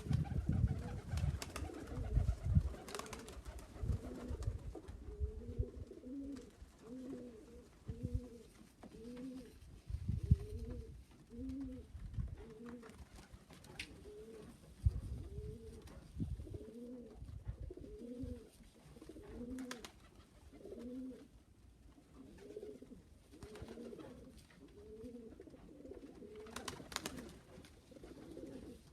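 Pigeons cooing: a steady run of low, repeated coos, a little over one a second. Low rumbling knocks come in the first few seconds, and a few sharp clicks sound later.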